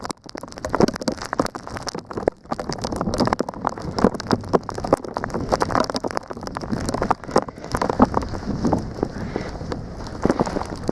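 Snowstorm wind and blowing snow on the microphone, making a dense, irregular, rain-like crackle over a low rumble.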